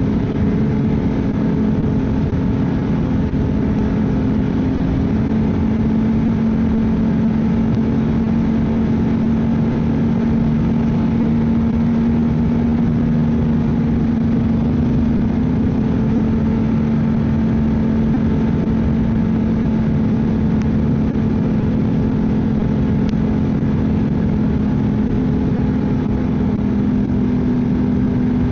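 Ski-Doo snowmobile engine running at a steady throttle: an even drone that holds its pitch.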